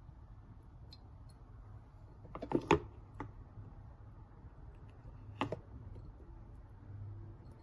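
Hard clicks and knocks from something being handled: a quick cluster about two and a half seconds in and a single sharper knock about five and a half seconds in, over a low steady hum and faint ticking.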